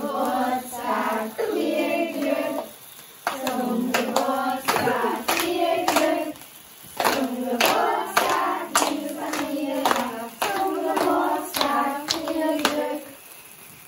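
A group, children among them, singing a birthday song together, clapping along in time from about three seconds in.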